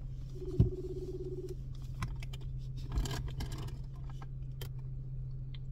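A phone's ringback tone playing over speakerphone, one ring about a second long near the start, while a call waits to be answered. A steady low hum runs underneath, and there are a few knocks and rustles of handling, the sharpest about half a second in.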